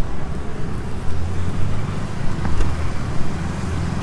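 Street traffic: a motor vehicle's engine drones steadily close by, over the general hum of the road.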